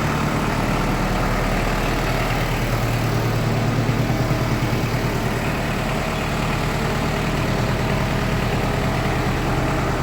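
Kubota M59 backhoe's diesel engine running steadily while the loader is maneuvered, a little louder around four seconds in.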